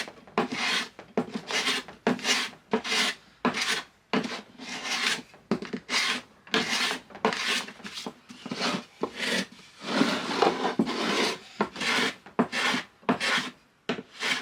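Small block plane taking repeated shaving strokes along the edge of a plywood drawer, about one stroke a second, trimming a high edge on the bottom so the drawer slides in smoothly.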